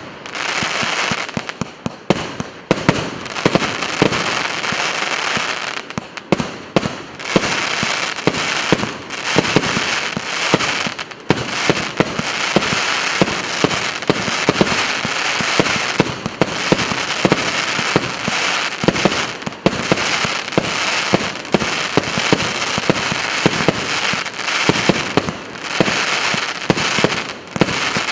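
A 150-shot consumer firework cake with 0.8, 1 and 1.2 inch tubes firing in rapid succession. A dense run of sharp shots and bursts, several a second, over a continuous hiss and crackle, with only brief lulls.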